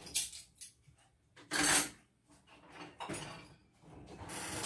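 Cutlery and dishes clinking and clattering as they are loaded into a dishwasher's racks, in several separate clatters.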